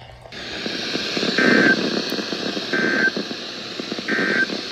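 Three short Emergency Alert System end-of-message data bursts from a NOAA Weather Radio test broadcast, each a brief two-tone digital warble, about a second apart. They sit over steady radio static that comes up just after the start. The bursts close the required weekly test.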